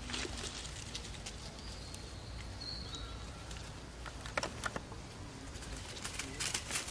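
Outdoor forest ambience: a steady low rumble with scattered sharp clicks and rustles, and a faint high bird call about two seconds in.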